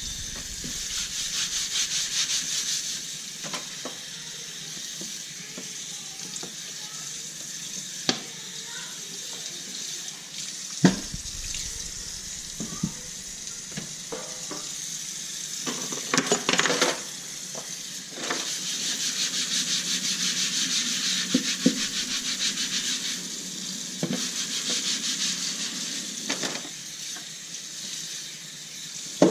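Kitchen tap running into the sink in several stretches, with dishes and utensils knocking and clinking against each other as they are washed by hand.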